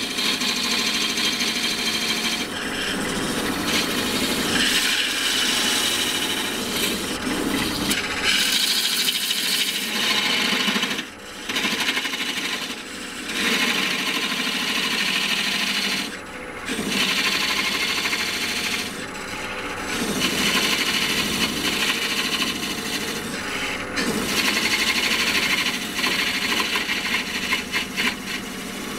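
Parting tool cutting into a spinning wooden blank on a wood lathe: a steady scraping, hissing cut as the groove to part off the lid deepens, with short breaks about four times where the tool eases off.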